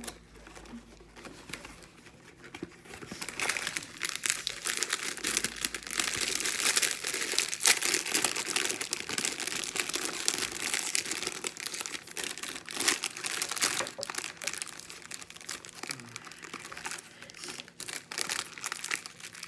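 Clear plastic candy packets crinkling as they are handled and pulled open, a dense crackle that starts about two seconds in, is loudest in the middle and thins to scattered crinkles near the end.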